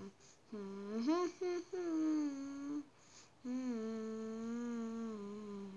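A person humming a slow tune with long held notes, the last held for about two seconds and sliding slightly down in pitch.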